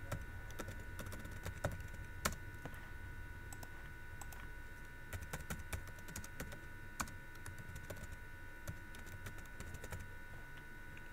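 Typing on a computer keyboard: irregular key clicks at an uneven pace, over a faint steady hum.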